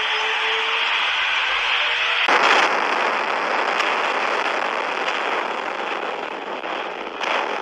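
Cartoon sound effect for a flying saucer hurtling along in flames: a steady loud rushing noise with a faint rising whistle under it. About two seconds in a sudden harsher blast cuts in and carries on as a crash-like noise, with another short burst near the end.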